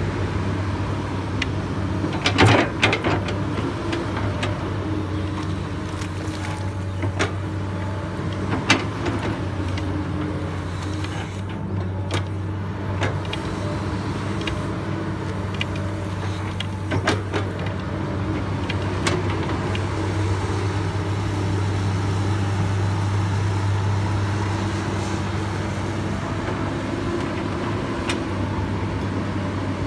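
Komatsu PC200 excavator's six-cylinder diesel engine running steadily as the boom, arm and bucket work in wet mud. A few sharp knocks and clanks from the digging equipment stand out over the drone.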